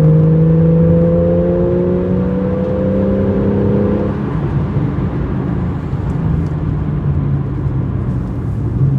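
Porsche 911 Carrera GTS (991.1) 3.8-litre flat-six running at steady revs under way. About four seconds in, the engine note drops away and leaves a low road and tyre rumble.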